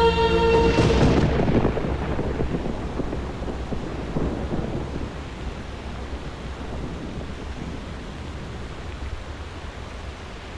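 The music stops and a thunderclap breaks about a second in, rumbling and fading into a steady hiss of rain.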